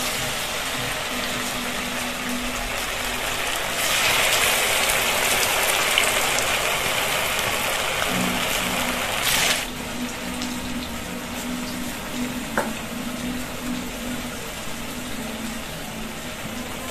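Raw-potato and sago pakoras deep-frying in hot oil in a kadai: a steady sizzling hiss. It grows louder about four seconds in and drops back sharply a little before ten seconds.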